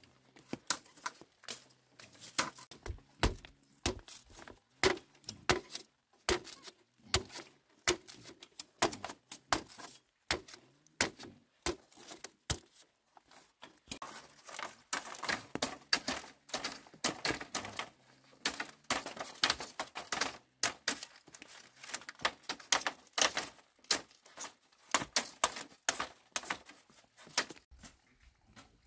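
Green bamboo poles being split into strips with a machete: an irregular run of sharp knocks, cracks and splintering clicks.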